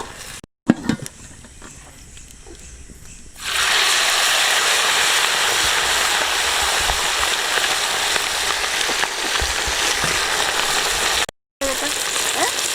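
Whole chickens deep-frying in sesame (gingelly) oil. A loud, steady sizzle sets in about three and a half seconds in. Before that there is only quieter crackling with a few clicks.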